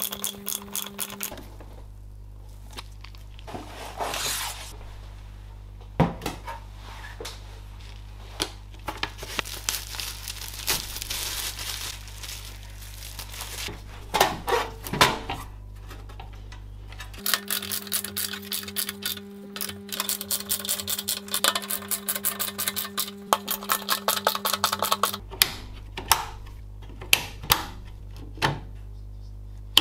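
Metal parts clinking and rattling as they are handled and screwed into a steel PC case. An electric screwdriver runs with a steady whine for a moment at the start and again for several seconds past the middle, among quick clicks.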